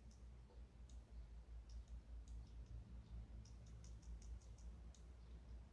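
Faint, irregular light clicks, several in quick succession a little after the middle, over a low hum: brine shrimp (artemia) cysts being shaken out of a small bottle into a tiny measuring spoon.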